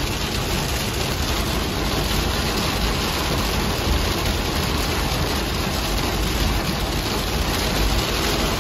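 Heavy rain beating on a moving car and its tyres hissing on the soaked motorway, heard from inside the cabin as a steady rushing noise over a deep road rumble.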